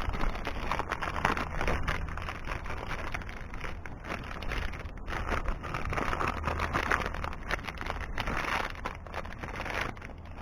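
A flathead screwdriver working a truck's hood latch: a dense run of small metallic clicks and scrapes over a steady low rumble, easing off near the end.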